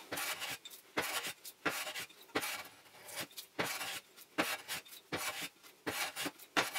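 Restored hand smoothing plane, set for a very fine cut, shaving a wooden frame in a quick run of short strokes, about two or three a second.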